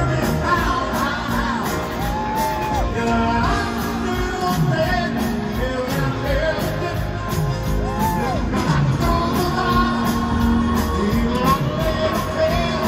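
Live pop-rock band playing with a sung vocal line, echoing in a large arena, with shouts and whoops from the crowd.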